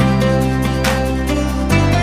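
Background music: a gentle instrumental track with sustained chords and a steady beat, the chord changing near the end.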